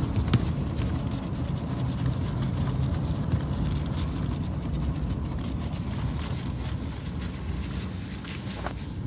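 Steady engine and road noise of a car driving along a road, heard from inside the car.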